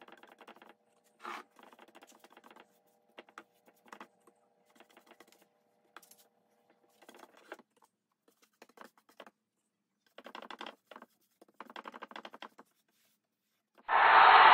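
Bristle paintbrush scratching and swishing in short, faint strokes across a plywood drawer bottom while brushing on a polyurethane finish. Near the end a much louder, steady rushing noise cuts in suddenly.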